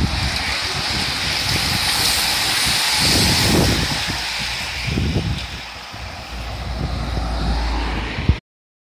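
A bunch of racing bicycles passing close by: a dense hiss and whir of tyres and drivetrains over a low, buffeting rumble. It thins out after a few seconds and the sound cuts off suddenly near the end.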